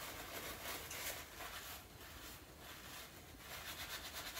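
Faint rustling and rubbing of a paper napkin as sticky fingers are wiped clean, in a run of soft scrapes.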